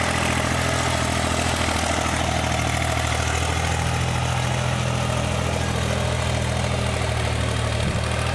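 Mahindra tractor's diesel engine running steadily at an even speed.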